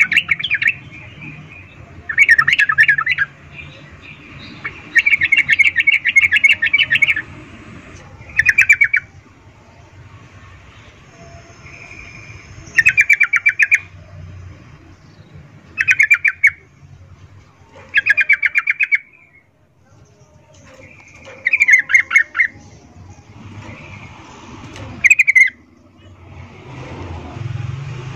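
Yellow-vented bulbul (trucukan), a female, giving its breeding-season call: short bursts of rapid chattering chirps, about ten of them, each half a second to two seconds long, repeated every two to three seconds. The call is the kind played to males as a lure to set them singing.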